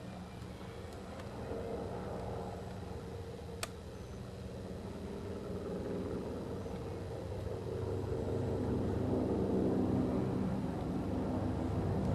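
Helicopter flying overhead, a steady mechanical drone of several even tones that grows gradually louder as it comes closer. A single sharp click about three and a half seconds in.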